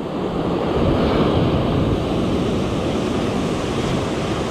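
Ocean surf breaking and washing over shoreline rocks, a steady rush that swells about a second in.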